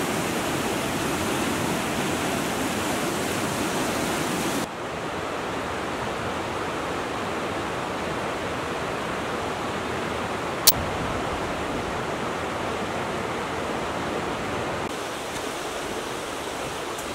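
River water rushing over rocky rapids in a steady roar. About five seconds in it changes abruptly to a slightly quieter, duller flow of a broad river, with one sharp click about ten seconds in.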